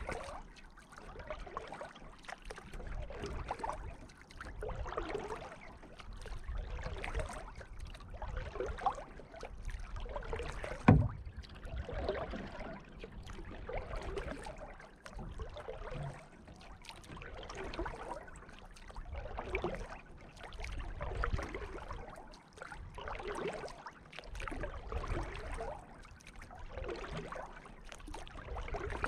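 Canoe paddle strokes: water swishing and dripping in a slow, even rhythm, a stroke about every two seconds. One sharp knock about eleven seconds in.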